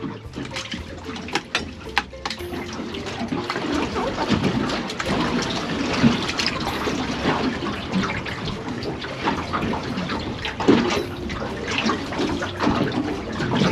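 Water splashing and sloshing, an irregular run of small splashes and crackles.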